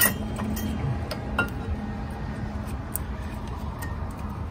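Metal brake pad clicking and clinking as it is seated into the rear caliper bracket of a Honda Del Sol Si. A sharp click comes at the start and another about a second and a half in, with light ticks between, over a steady low hum.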